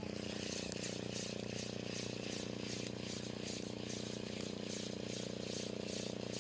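Spinning reel being cranked, giving a regular whirring rattle about three times a second as the line is wound in, over a steady low hum.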